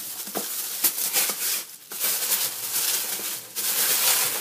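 Packing paper rustling and crinkling, with cardboard scraping, as a paper-wrapped model box is pulled out of a cardboard shipping carton. The rustling comes in uneven bursts with a couple of brief pauses.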